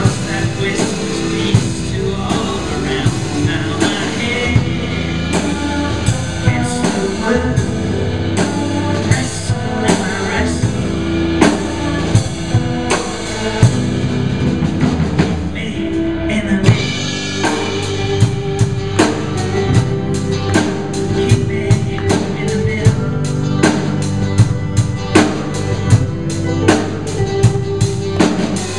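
A live band playing a song: acoustic and electric guitars over a drum kit keeping a steady beat. The drumming gets busier and brighter a little past halfway.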